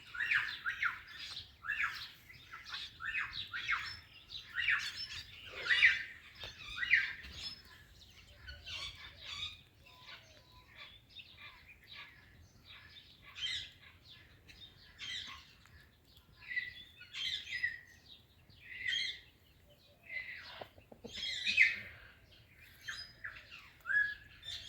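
Indian ringneck and Alexandrine parakeets squawking and chirping in quick runs of short, sharp calls, densest in the first several seconds, with quieter gaps between.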